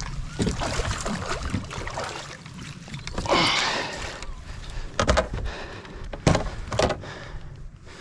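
Water slapping against an aluminum boat hull, with a louder rush of noise about three seconds in and three sharp knocks in the second half.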